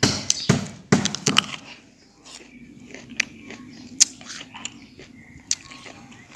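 Close-up crunching of someone chewing a bite of firm, unripe green apple, loud crackly chews in the first second and a half, then quieter with a few scattered clicks.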